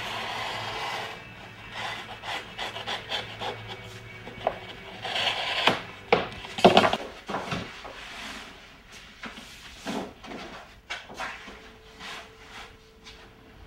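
A large sheet of paper being cut from a roll with a utility knife and handled: rustling, rubbing and sliding of stiff paper, with scattered small knocks and scrapes. It is loudest a little past the middle.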